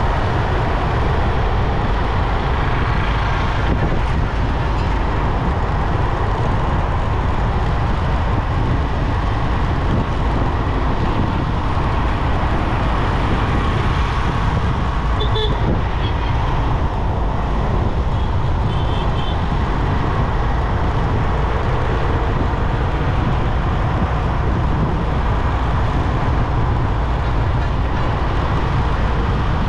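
Steady wind and road rumble from riding a motorcycle along a highway, with passing traffic. A short horn toot sounds a little past halfway, and another a few seconds later.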